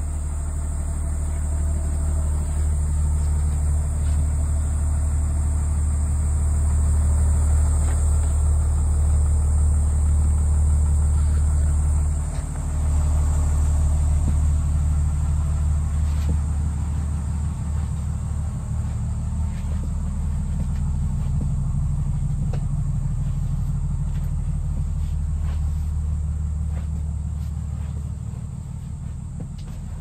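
Cummins diesel engine of a Blue Bird school bus idling steadily, heard from inside the bus, with a brief dip about twelve seconds in and a few light knocks in the second half.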